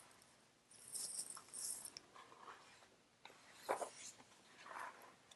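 Faint rustling of a picture book's paper page being turned, with a few soft handling noises and a small click.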